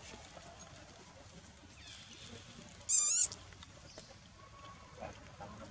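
Infant long-tailed macaque giving one short, shrill, wavering scream about three seconds in.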